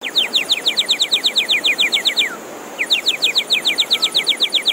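Water-filled ceramic bird whistle blown in two warbling trills of quick falling chirps, about ten a second, with a short break about two seconds in.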